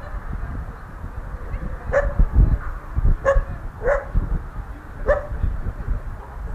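A puppy barking, four short barks spread over about three seconds.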